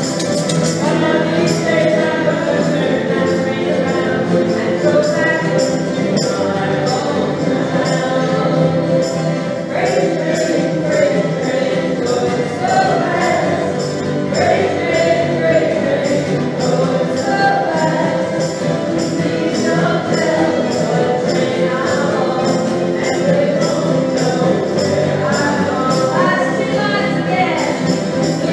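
Folk jam: many acoustic guitars strummed together in a steady rhythm, with a tambourine shaking along and a group of voices singing in unison.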